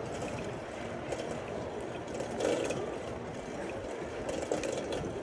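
Riding a bicycle: a steady rumble of tyres and rushing air, with scattered clicks and rattles from the bike's mechanism.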